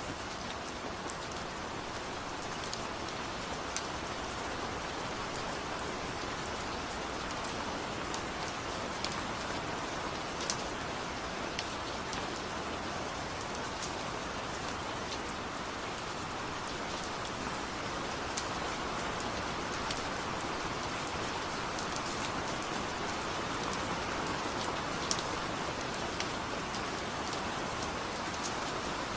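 Steady rainfall, an even hiss with scattered sharp drop ticks.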